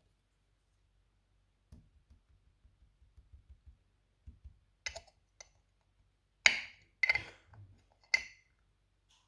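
Small toy playset pieces being handled: faint light taps, then a few sharp clicks and three louder clattering knocks, the loudest about six and a half seconds in.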